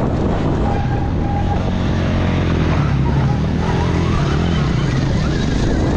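Stark Varg electric motocross bike ridden hard on a dirt track, heard from the bike: the electric motor's whine rises and falls with the throttle, with a rising whine about four seconds in, over heavy wind rush on the microphone.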